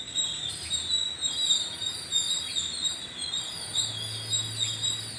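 Many small birds chirping at once: a dense chorus of short, high, overlapping chirps.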